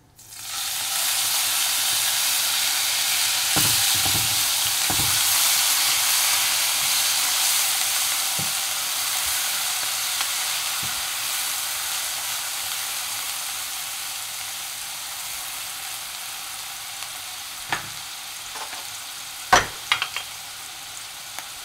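Crushed onion hitting hot oil and cumin seeds in a nonstick wok, sizzling loudly at once and slowly dying down as it fries. A few knocks and scrapes of a spatula stirring come a few seconds in and again near the end.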